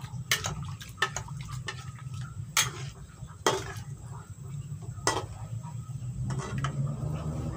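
Metal spatula stirring chicken curry in thick coconut milk in a frying pan, scraping and knocking against the pan with several sharp clinks about a second apart, over a steady low hum.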